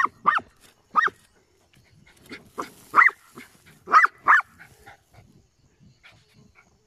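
A dog barking, about seven short sharp barks mostly in quick pairs, stopping about two-thirds of the way through, as it digs into a burrow after a cornered armadillo. Paws scrabble in loose dirt between the barks.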